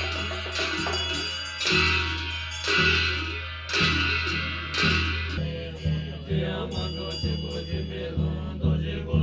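Tibetan Buddhist ritual hand cymbals clashing about once a second, each clash ringing on, with the beat of a large painted frame drum. About halfway through, the loud ringing clashes stop and quicker, softer beats follow.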